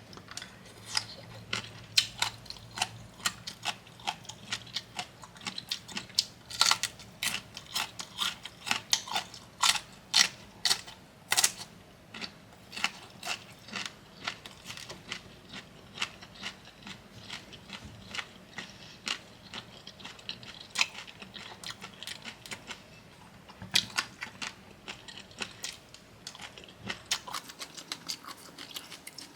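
Close-miked crunchy chewing of bamboo shoot papaya salad: irregular crisp crunches, several a second, coming in clusters.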